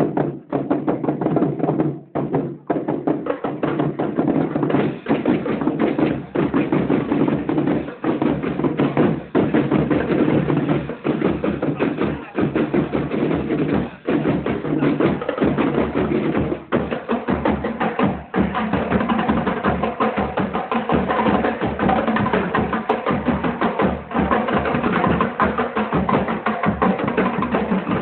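Marching band playing, with brass over drums that strike a steady, busy beat.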